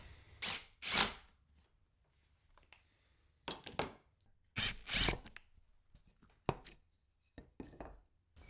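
Wooden chair-frame parts being handled and set down: a series of irregular knocks and scrapes of wood.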